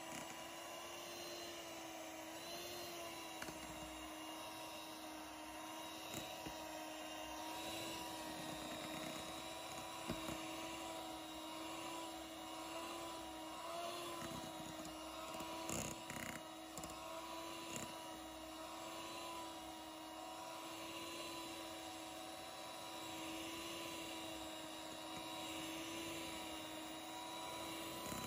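Electric mixer motor running at a steady speed with a constant whine while its beaters whip a thick pale cream. A few faint clicks.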